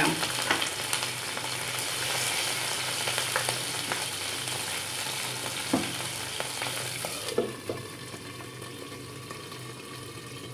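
Chopped green capsicum sizzling in hot oil in a non-stick frying pan. About seven seconds in, a lid knocks onto the pan and the sizzle turns duller and quieter under it.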